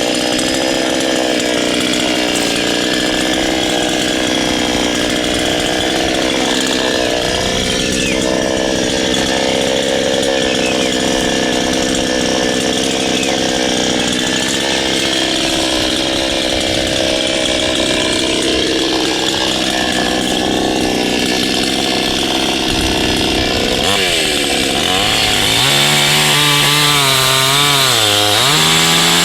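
Chainsaw running steadily at high speed, then its engine speed dips and rises several times over the last five seconds.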